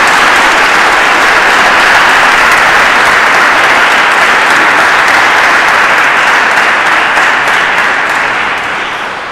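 Audience applauding, a steady wash of many people clapping that begins to die away near the end.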